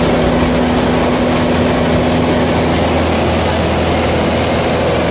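Jump plane's engine and propeller droning steadily.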